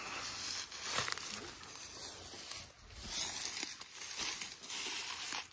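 Footsteps through dry, dead grass, with a papery rustling and crackling, and camouflage clothing and gear brushing along as the walkers move.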